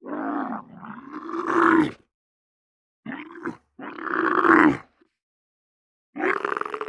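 Loud animal calls in three bouts, each a pitched call with gliding tone that swells louder toward its end, separated by dead silences.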